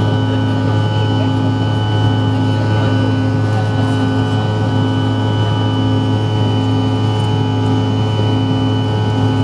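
Bombardier CRJ-900's rear-mounted GE CF34-8C51 turbofans at climb power, heard inside the cabin: a steady low drone under a high steady whine, with one tone throbbing about one and a half times a second.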